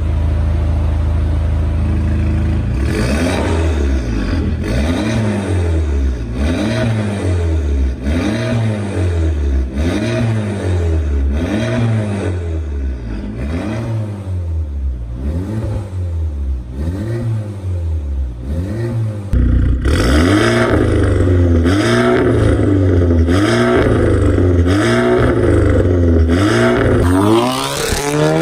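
A 2019 Audi A4 B9's de-catted Armytrix valved exhaust idling, then revved in quick blips about once a second, the pitch rising and falling with each one. After a cut about two-thirds through, the revs come louder, and near the end the engine pulls up in a steady rising note as the car accelerates away.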